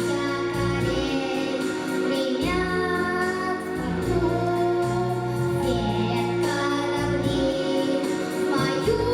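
Pop song backing track playing its introduction: wordless, choir-like sung voices over sustained instruments and a repeating bass line.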